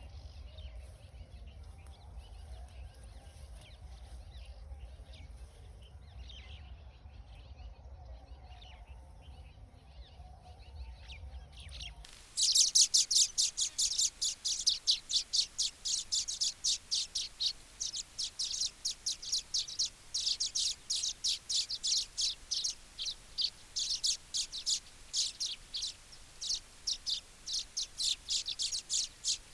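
Baya weavers chirping. At first the chirps are faint over a low rumble of background noise. About 12 seconds in the sound changes abruptly to loud, rapid chattering chirps, many each second.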